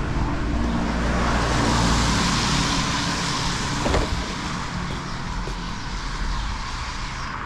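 A car driving past on the street. Its engine and tyre noise swells over the first few seconds and then fades, with one short knock about four seconds in.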